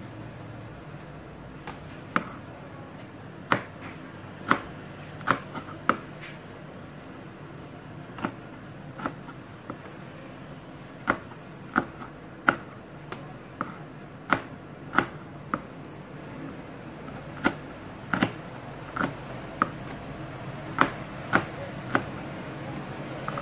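Kitchen knife slicing green bird's-eye chillies on a plastic cutting board: irregular sharp knocks of the blade hitting the board, about one or two a second, over a low steady hum.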